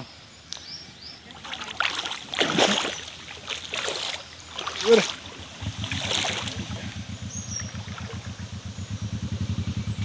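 Water splashing and sloshing in a shallow stream for several seconds. From about halfway on, an engine runs with a steady, fast, low throb.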